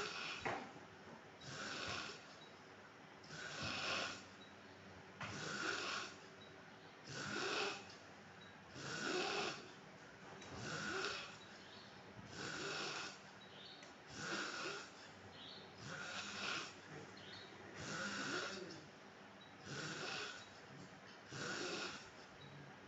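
A man snoring in his sleep. Raspy snore-breaths come evenly, about one every two seconds, a dozen in all.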